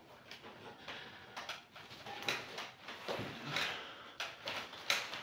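Rustling with scattered light knocks and scrapes as a man sits up and shifts his weight on a weight bench.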